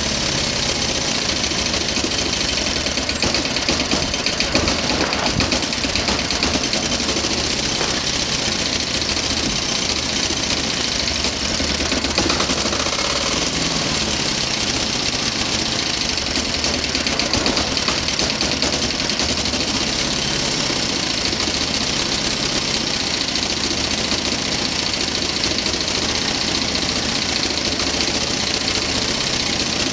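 Diesel generator engine running at a steady speed, with a fast, even clatter.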